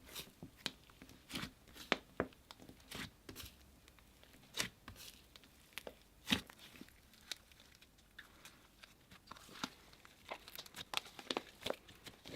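Slime being pressed and squished by hand, giving irregular sticky pops and crackles, a few of them sharp and loud.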